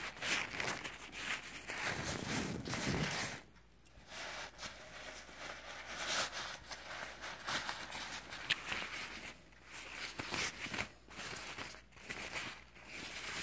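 Umbrella-canopy fabric rustling as a folded shopping bag is shaken open and handled, in irregular rustles with a few light clicks.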